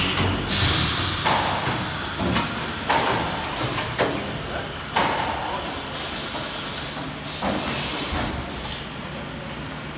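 DCS-10F7N rice vacuum packing machine running: a series of sudden air hisses and clicks at irregular intervals, about one a second, over a steady low hum.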